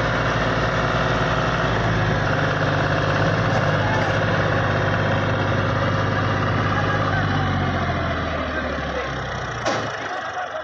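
John Deere 5038 tractor's diesel engine running steadily at low speed. About eight seconds in the engine note drops and grows quieter, and a single sharp click comes near the end.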